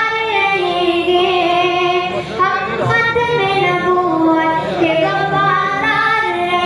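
A boy singing an Urdu naat unaccompanied into a microphone, in long, ornamented phrases that waver in pitch.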